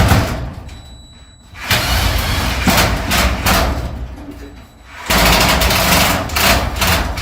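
Power driver running in three long bursts, driving a fastener through 1/8-inch aluminum angle into a bowed metal garage door so that it draws the door in against the angle.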